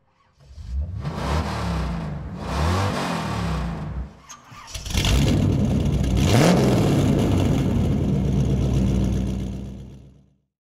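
Electric motors and geared drivetrains of RC rock crawlers whining, their pitch rising and falling with the throttle, while the tyres churn through snow. The sound dips briefly about four seconds in and fades out near the end.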